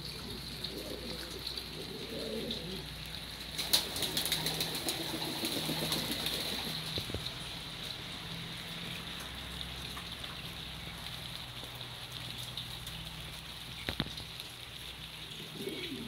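Pigeons cooing in low, throaty murmurs, on and off over the first seven seconds or so. A few short sharp clicks come about four seconds in and again near the end.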